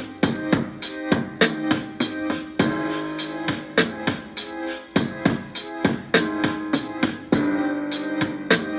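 A beat playing back from an Akai MPC Live built from its stock sounds: steady drum-kit hits, about two to three a second, under held piano or electric-piano chords.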